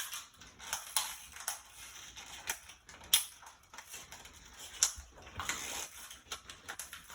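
Toy packaging being handled and opened: irregular plastic and cardboard clicks, snaps and crinkles.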